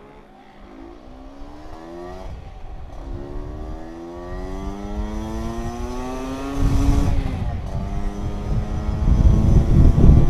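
Two-stroke Vespa scooter engine accelerating from a standstill up through the gears: the pitch climbs, drops at each of three gear changes, and climbs again. Wind rushing over the microphone grows louder as speed builds in the second half.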